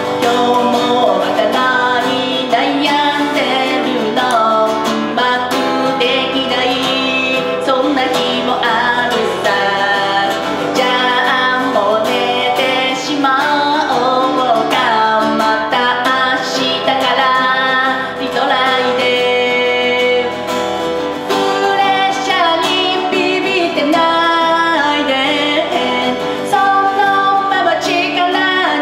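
A woman singing a Japanese song into a microphone while strumming an acoustic guitar, played live and solo.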